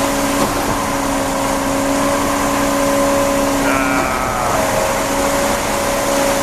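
Concrete pump truck running steadily under load while pumping concrete, a constant loud engine-and-pump drone with a steady hum.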